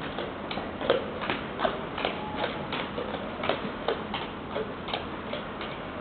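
Shod Shire horse's hooves clopping at a walk on a hard shed floor: a steady run of sharp knocks, about three a second.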